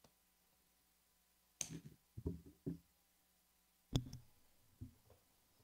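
Plastic folder pieces being handled and set down on a table: a few soft knocks about one and a half to three seconds in, then a sharper tap near four seconds.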